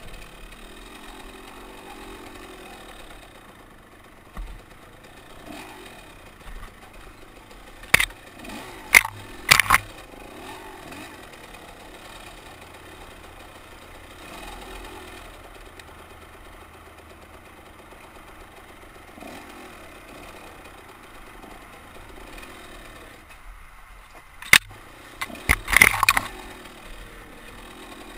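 Yamaha WR200 two-stroke enduro engine running along under throttle, its pitch rising and falling. Sharp knocks and clatters come in clusters about eight to ten seconds in and again near the end.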